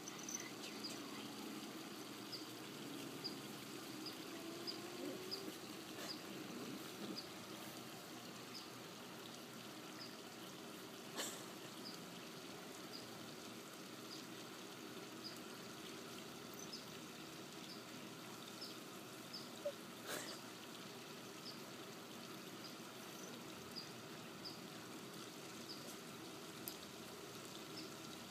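Faint outdoor ambience with a short, high chirp repeating about once a second, and a couple of soft clicks.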